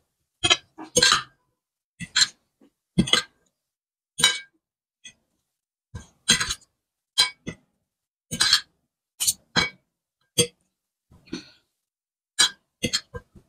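Metal forks clinking and scraping against a ceramic plate as instant noodles are tossed and mixed. These come as about fifteen short, irregular sounds, one every second or so, with silence between.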